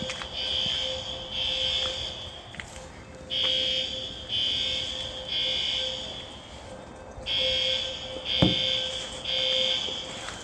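Building fire alarm horns sounding a high-pitched evacuation signal in groups of three blasts, each group repeating about every four seconds: the temporal-three pattern that calls for a whole-building evacuation, set off, as the uploader has it, by people letting cooking steam into the hallway. A single thump about eight and a half seconds in.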